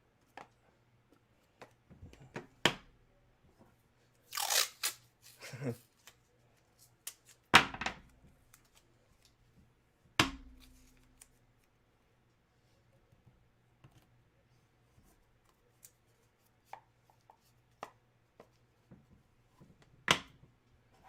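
Packaging rustling and tearing as a memorabilia item is unwrapped, with scattered clicks and a few sharp knocks, one with a brief low ring.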